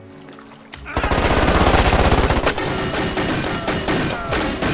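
Automatic gunfire from a film action scene: a sudden, loud, rapid burst about a second in that keeps going.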